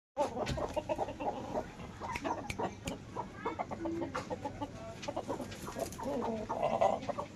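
Chicken clucking and making snoring, rattling breath sounds ('ngorok'), a respiratory complaint that capsule medicine has not cured. Short, irregular calls come throughout, with a thicker rasping stretch near the end.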